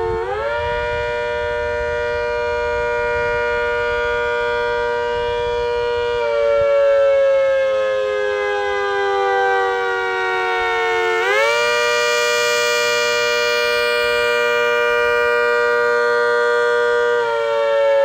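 Rotating siren sounding a wail: a chord of tones that rises quickly to a held pitch, holds for about six seconds, then slowly falls, and rises again about eleven seconds in to hold and fall once more.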